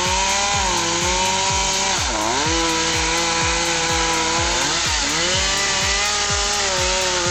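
Chainsaw running at high revs through a felling cut, its pitch dipping as it bogs under load about two seconds in and again around five seconds. A steady thumping music beat runs underneath.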